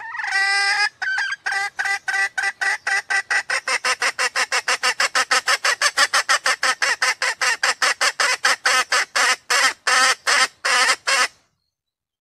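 Female red junglefowl calling: one drawn-out note, then a long run of quick, evenly spaced clucks, about four or five a second, which spread out near the end and then stop.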